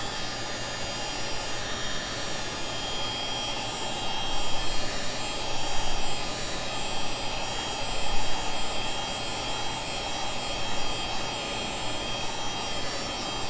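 Hot-air heat gun blowing steadily on an iPhone X to soften the screen adhesive before the display is pried off, swelling a little a few times.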